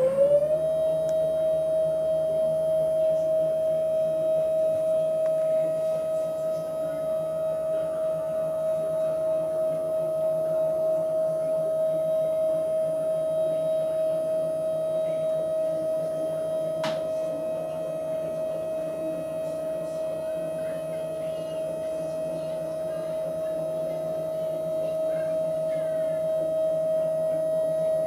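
Drive motors of a homemade GoTo conversion on a 12-inch SkyWatcher Dobsonian telescope slewing the tube at constant speed. They make a steady whine that settles on one pitch right at the start, after ramping up in speed. A single click comes about two-thirds of the way through.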